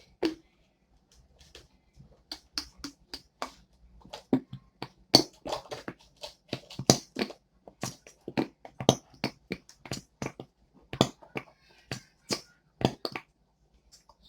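Slime being mixed and squished by hand, giving irregular sharp clicks and pops, a few a second, starting about two seconds in.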